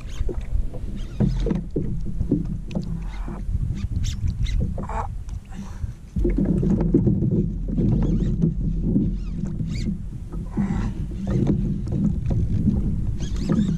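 Wind rumbling on the microphone and water moving around a sit-on kayak, with scattered clicks and knocks from cranking a reel while fighting a fish on a bent rod. The rumble gets suddenly louder about six seconds in.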